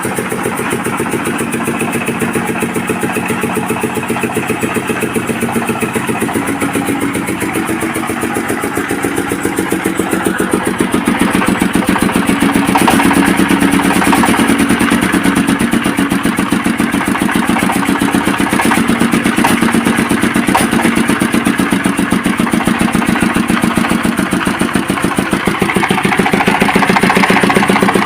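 Overhauled 24 hp engine coupled to a 10 kW single-phase generator, running steadily with an even firing beat. It gets louder about eleven seconds in and again near the end.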